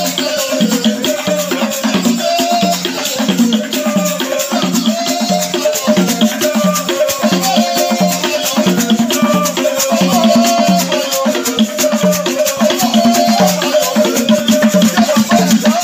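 Music with rattles or shakers and a drum keeping a steady beat, and a wavering melody line above.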